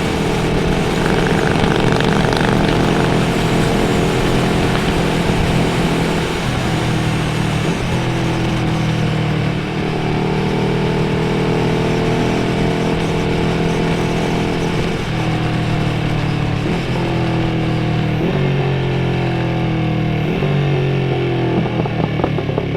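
Motorcycle engine heard from the rider's position while riding, over wind rush. The note is steady at first; from about six seconds in, its pitch changes in a run of steps, each broken by a gear change.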